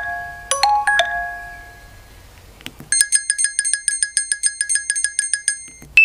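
Nokia 6300 4G ringtone previews from the phone's loudspeaker. A melodic chime tune dies away over the first two seconds. After a short click comes a rapid run of identical high electronic beeps, several a second, lasting about two and a half seconds.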